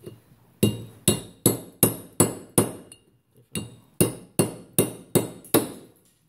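Hammer blows on a chisel, driving a steel bearing race out of a Massey Ferguson 35 front wheel hub. There are two runs of about six sharp metallic strikes, roughly two and a half a second, with a short pause between. The race is moving down with each blow.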